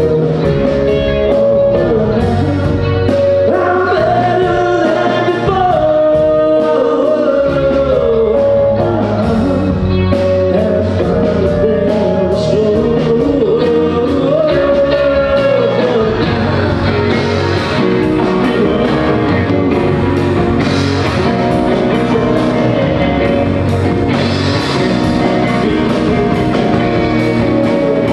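Rock band playing a song live on stage during a sound check, a lead vocal singing over guitar, bass and drums. The mix grows fuller and brighter about halfway through.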